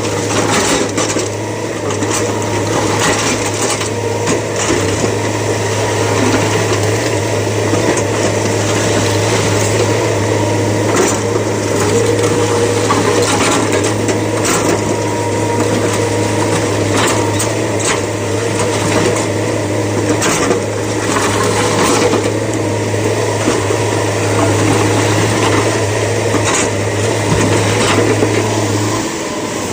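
Heavy diesel quarry machinery running steadily with a low hum, over a rattle of scattered knocks and clatter. The low hum drops out shortly before the end.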